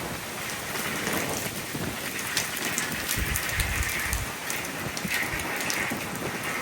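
Hurricane rain falling steadily and pattering on hard surfaces, with a low rumble about halfway through.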